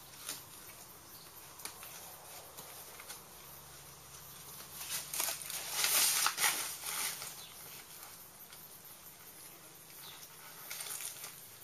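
Heavy canvas rustling and crackling as a rolled-up tent wall panel is handled and tied up by hand, loudest about five to seven seconds in.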